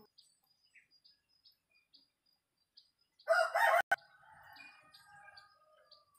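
A rooster crowing once: a loud opening about three seconds in, then a weaker drawn-out tail that trails off over the next two seconds. Faint short high chirps repeat about twice a second behind it.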